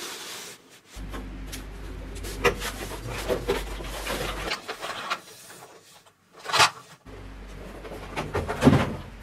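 Cardboard toy box being handled and opened, with cardboard rubbing and scraping as a plastic toy truck is slid out. A few sharp knocks, the loudest about two-thirds of the way through and near the end.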